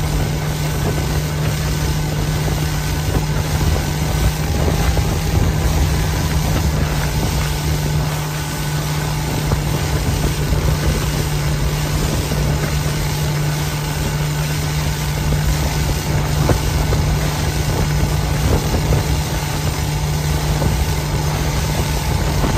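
Outboard motor running steadily at speed with the boat under way, one constant low engine tone under a continuous hiss of rushing wind and water.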